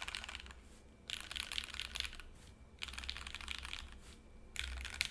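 Typing on a Think6.5 V2 mechanical keyboard with H1 switches in Cherry top housings on an FR4 plate: four short runs of rapid keystrokes with brief pauses between.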